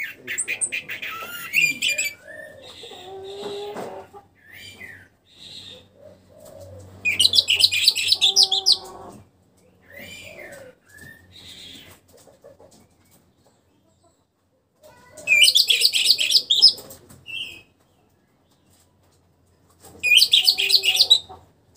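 Orange-headed thrush (anis merah) singing in four short, loud bursts of rapid, high twittering notes. The bird is just out of its moult and starting to sing freely again.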